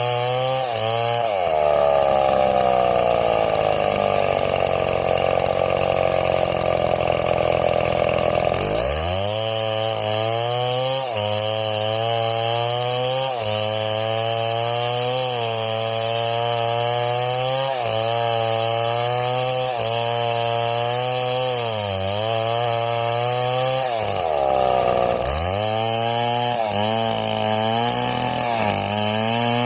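Two-stroke chainsaw running hard while cutting wood, its engine note sagging and climbing back several times.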